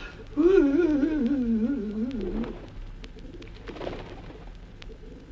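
Pigeons cooing: a wavering, rolling coo lasting about two seconds, then fading to a faint background.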